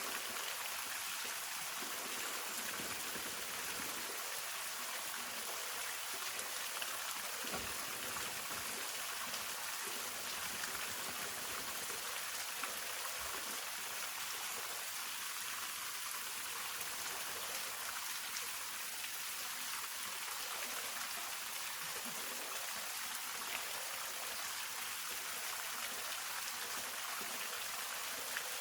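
Hongryu Falls, a mountain waterfall, pouring and splashing in a steady, even hiss of falling water.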